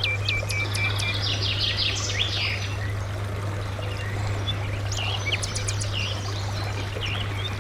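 Songbirds singing: scattered chirps and short trills, busiest in the first two seconds and again around five seconds in. Behind them are a steady rushing noise and a low, even hum.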